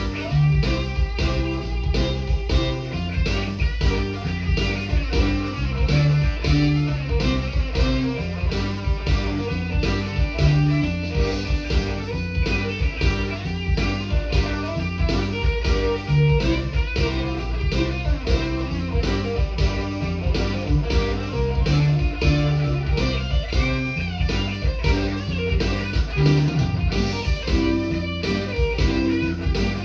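Gibson SG electric guitar playing a blues lead over a backing with bass notes and a steady beat.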